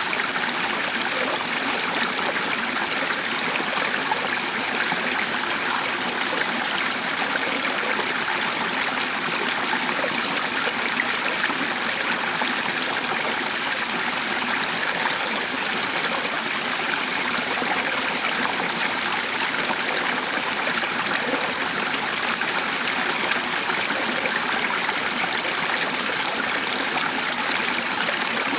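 Shallow stream flowing steadily, an even rushing and trickling of water that does not change.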